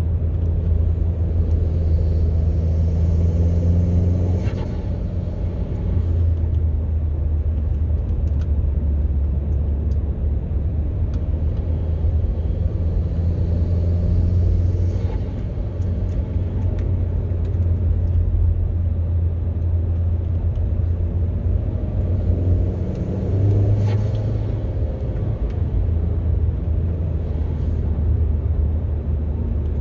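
2013 Chevrolet Sonic RS's 1.4-litre turbocharged four-cylinder engine running under way, with a low steady drone. Three times, roughly ten seconds apart, the throttle is lifted and there is a short turbo flutter as the engine note drops.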